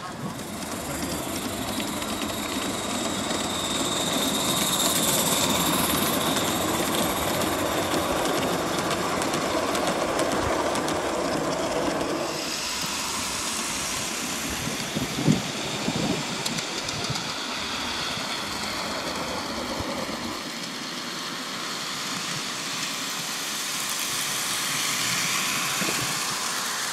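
Live-steam model locomotives running on garden-railway track: steady steam and running noise from the engines and wheels on the rails, with one sharp knock about fifteen seconds in.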